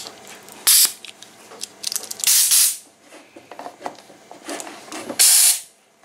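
Compressed air from an air blow gun hissing in three short blasts, about a second in, two seconds in and five seconds in, blown back through a coffee maker's clogged water tube to clear it; the blasts drive rusty debris out of the tube.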